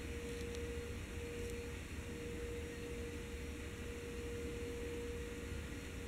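A 52-inch Hunter Pavillion ceiling fan running steadily: a steady motor hum over a low whoosh of moving air.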